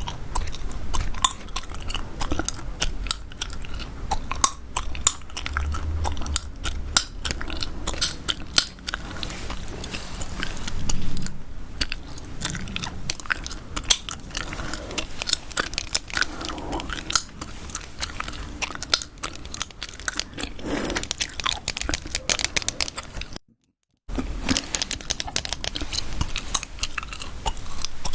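Close-miked gum chewing, a dense run of sharp mouth clicks, broken by a brief cut to silence about five seconds before the end.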